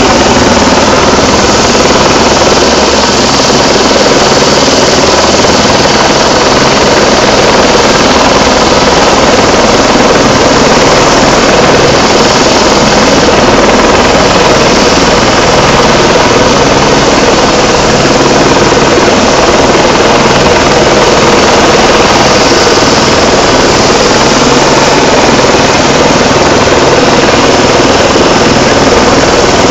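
Rescue helicopter hovering low close by: very loud, steady rotor and turbine noise with a fast, even beat of the blades.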